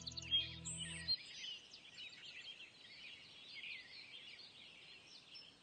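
Many birds chirping, with background music that cuts off suddenly about a second in.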